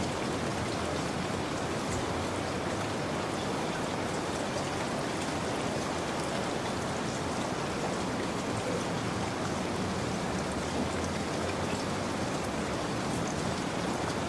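Steady rain falling, an even hiss of rainfall with faint drop patter, unchanging in level.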